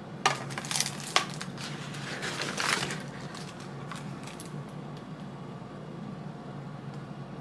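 Clear plastic lash-tray cases handled in the hands: a few sharp clicks and rustles in the first three seconds, then only a low steady hum.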